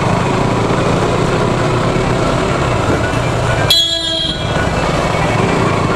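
Motorcycle engine running steadily at low speed, with a short horn blast lasting about half a second nearly four seconds in.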